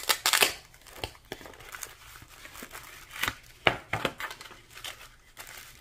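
Stiff paper rustling and crinkling as a cardstock envelope is opened and a card slid out of it: a few sharp crackles at the start, then more around three to four seconds in.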